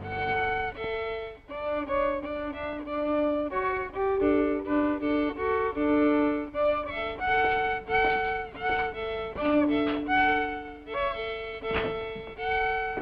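A solo violin playing a tune of short, separate notes with brief gaps between them.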